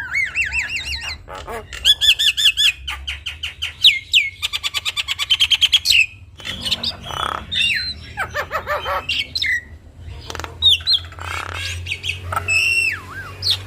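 Javan myna (jalak kebo) in full song: a long, varied run of wavy whistles, rapid trills of repeated notes, sweeping glides and harsh squawks, with mimicked calls (isian) mixed in.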